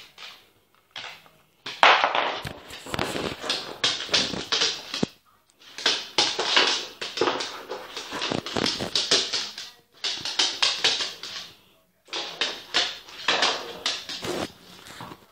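A Staffordshire Bull Terrier's claws clattering and scrabbling on a laminate floor as it dashes about playing. The clatter comes in bursts of one to three seconds with short breaks between them.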